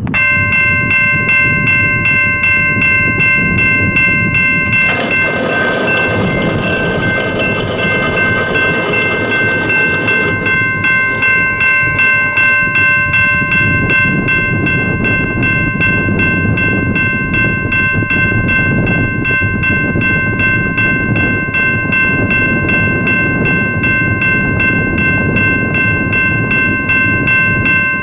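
Railroad crossing warning bell ringing in a rapid, steady pulse as the crossing signals activate for an approaching train. About five seconds in, a loud hiss joins it for about five seconds.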